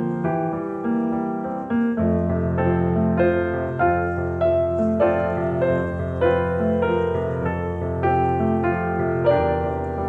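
Background piano music: keyboard notes playing a gentle melody, with deeper bass notes joining about two seconds in and dropping out near the end.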